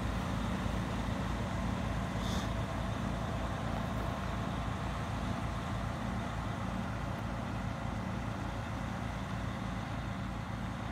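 Heavy diesel truck engine idling close by, with a steady low throb. A short hiss about two seconds in.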